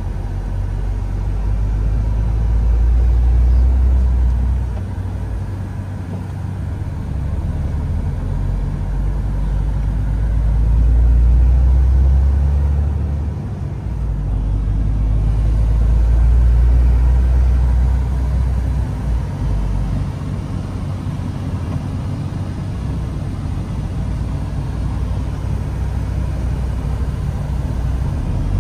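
Low rumble of a 2021 MAN TGX 510 truck's straight-six diesel engine and road noise, heard inside the cab while driving. The deep drone swells and eases several times.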